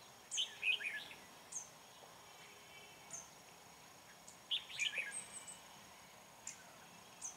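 Red-whiskered bulbuls singing: a short warbled phrase just after the start and another about four and a half seconds in, with single sharp chirps in between.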